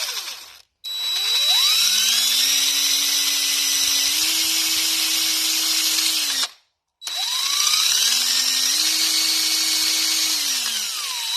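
Electric drill spinning a small buffing wheel while buffing compound is applied to the wheel. The motor whine rises as it spins up, runs steadily with small changes in speed, winds down near the end, and starts up again.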